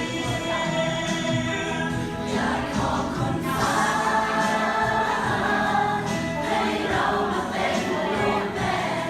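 A group of students singing a song together as a choir.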